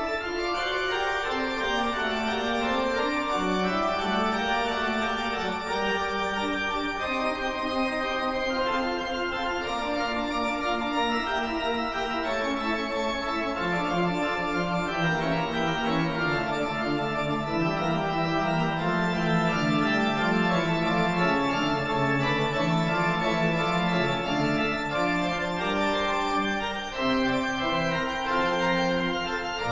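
Background music played on an organ-like keyboard: sustained chords with a moving melody and bass line.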